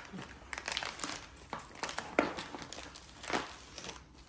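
Plastic packaging and bubble wrap crinkling and rustling as the parts are handled and pulled out of their wrapping, in irregular crackles with a sharper crackle a little over two seconds in.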